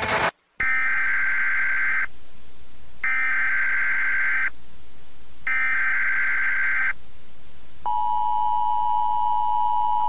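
Emergency Alert System broadcast tones. A moment of TV static cuts off, then three SAME header data bursts sound, each about a second and a half long with a second's gap between them. About eight seconds in, the steady two-tone EAS attention signal begins.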